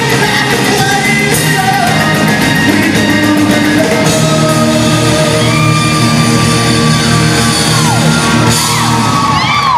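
Live rock band playing with a man and a girl singing into microphones; a long held sung note runs through the middle and falls away about eight seconds in.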